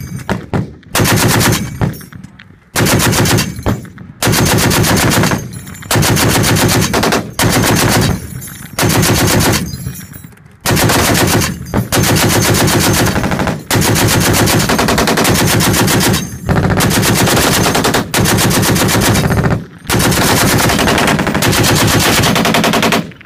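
M2A2 Browning .50-caliber heavy machine gun on a tripod, firing about a dozen bursts of automatic fire. Each burst lasts one to three seconds, with short pauses between them.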